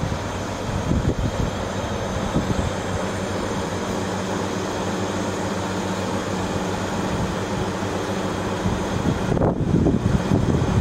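Gas absorption heat pump units running: a steady fan rush over a low hum of several steady tones, swelling briefly into a louder low rumble near the end.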